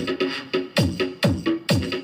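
Electronic DJ remix dance music with a deep kick drum about twice a second, playing through the repaired amplifier as a test of its audio output.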